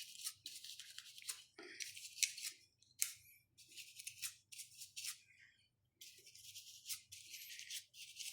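A brush scrubbing dust off a Mindray SV300 ventilator's blower fan: quiet, scratchy bristle strokes in quick runs, with a short pause about two-thirds of the way through.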